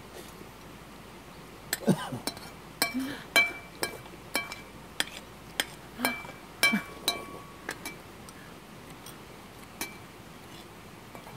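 Metal spoons clinking and scraping against ceramic bowls during a meal: a quick run of sharp clinks, some ringing briefly, from about two seconds in to about eight seconds, then one more near the end.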